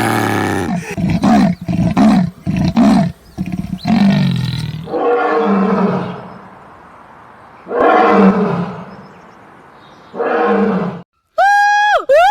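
A large animal roaring: a long deep roar, a run of short grunts, then several more drawn-out roars with pauses between. Near the end a different, higher call begins, clear-pitched and swooping down and up in pitch.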